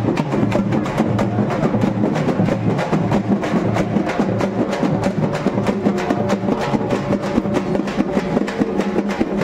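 Festival procession drums beaten by hand with sticks in a fast, dense, unbroken rhythm.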